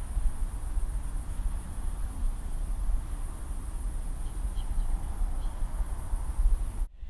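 Outdoor ambience of insects chirring steadily and high, with a few faint short chirps, over a low fluctuating rumble; the whole bed cuts off abruptly near the end.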